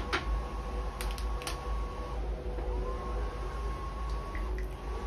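Light clicks of a glass teapot and cup being handled on a tabletop as tea is poured into a small cup, over a steady low rumble of wind and sea. A faint hum glides up in pitch and then holds steady, twice.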